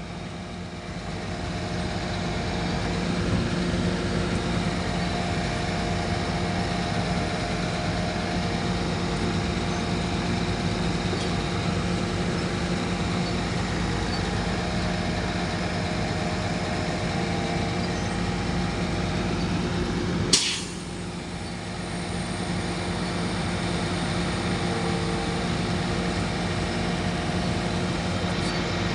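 A motor vehicle's engine running steadily with an even drone. About twenty seconds in there is one sharp click, then the sound drops briefly and builds back to the same drone.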